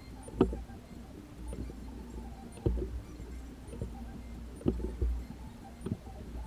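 A few irregular knocks and clicks, about four spread across several seconds, over a low steady rumble.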